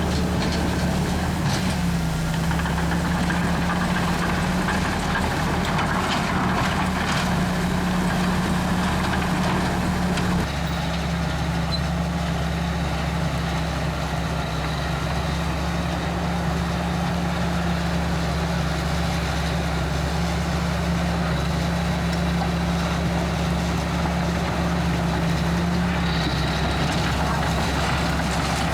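Komatsu D61EX bulldozer's diesel engine running steadily, with a steady low engine hum. Added clattering noise over the first ten seconds drops away abruptly about ten seconds in.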